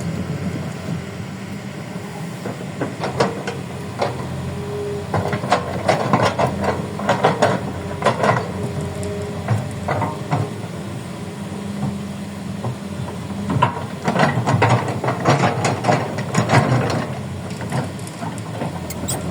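Kobelco excavator's diesel engine running steadily, with bunches of knocks, clanks and scrapes from the digging, mostly in the middle of the stretch.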